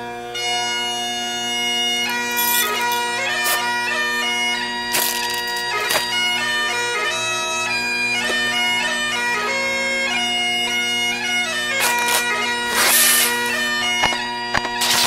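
Bagpipe music: a melody played over steady held drones, with a few brief bursts of hiss.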